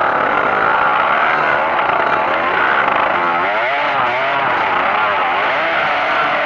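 Trail motorcycle engine running hard, its pitch rising and falling over and over with the throttle, most sharply from about three seconds in.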